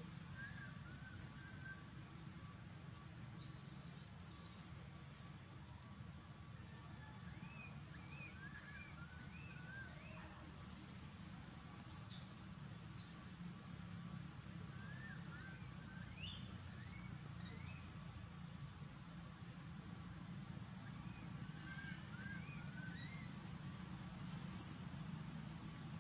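Forest ambience: small birds chirping on and off over a steady insect drone. A few short, very high-pitched squeaks are the loudest sounds: about a second in, a cluster a few seconds later, once near the middle and once near the end.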